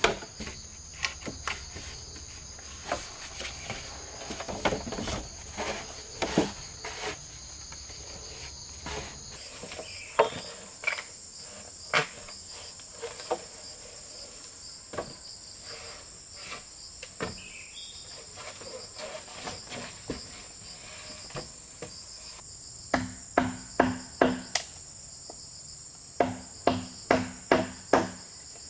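Hollow bamboo poles knocking and clattering as they are handled and laid down, over a steady high drone of forest insects. Near the end come two quick runs of hollow strikes on the bamboo, four blows and then six, each with a short ringing tone.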